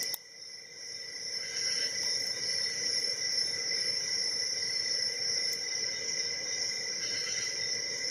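Faint clicks of a shallow hook pick working the pins of a Lockwood padlock held under heavy tension, over a steady high-pitched hum of several tones. The loudness dips suddenly right at the start and climbs back over the next few seconds.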